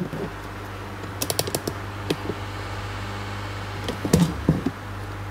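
Light clicks and metallic taps from parts being handled in a steel PC tower case as the mainboard is fitted: a quick flurry of small clicks about a second in and a few louder knocks around four seconds in, over a steady low hum.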